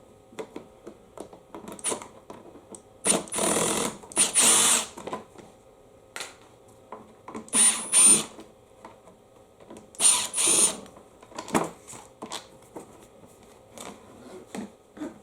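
Power drill run in several short bursts, each under a second with a high whine, with small clicks between, backing out the screws of a push mower's engine cover.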